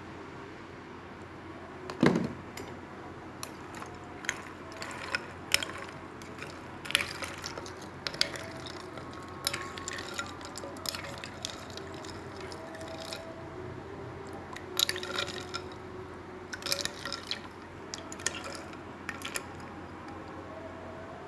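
A metal spoon stirring liquid with jelly strips and basil seeds in a bowl: irregular clinks of the spoon against the bowl amid light sloshing, over a steady background hum. The loudest clink comes about two seconds in.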